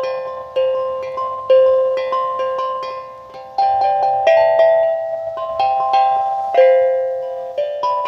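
Music: a melody of high plucked or struck notes, each starting sharply and ringing away, about two or three notes a second.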